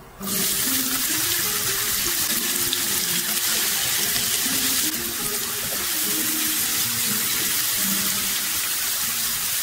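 Diced red onions hitting hot oil in a nonstick frying pan: a loud sizzle bursts up the moment they land and carries on steadily as they fry.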